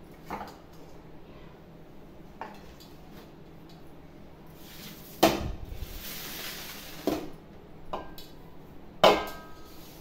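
Stainless-steel plates and a steel mixing bowl knocking and clinking against each other and the counter as they are handled, with loud knocks about five and nine seconds in, the second ringing briefly like metal. After the first loud knock there is a short hissing scrape of a plate sliding.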